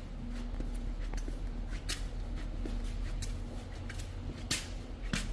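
Scattered short scrapes and clicks of sheet-metal panel work, a few per second at irregular intervals, over a steady low hum.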